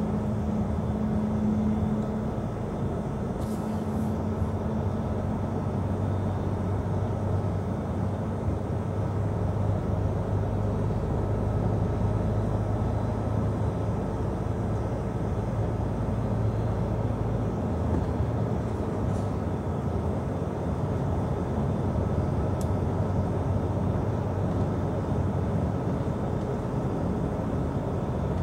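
Inside a moving lorry's cab: the diesel engine running steadily under way, with tyre and road noise. A low hum shifts lower in pitch about two seconds in.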